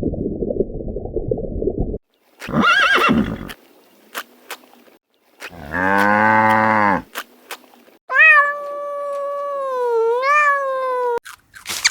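A string of different animal calls, edited one after another with abrupt cuts: a low rumbling growl, a short pitched call, a few clicks, a deep call with many overtones, and a long, steady, high call that wavers near its end.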